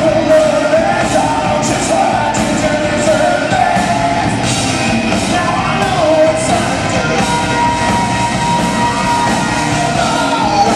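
Live rock band playing loud: distorted electric guitars and drums with regular cymbal hits under a sung lead vocal, heard through the PA from the audience.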